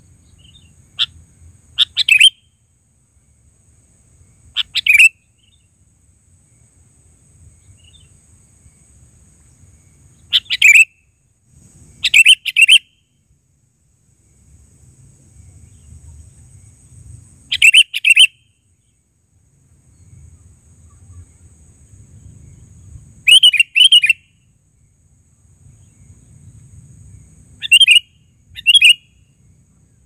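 Sooty-headed bulbul (kutilang) calling: short, loud chirping phrases in about eight bursts, a few seconds apart, with pauses between them.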